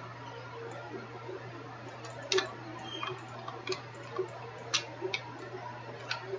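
A few sharp, irregularly spaced computer mouse clicks over a steady low hum and faint hiss.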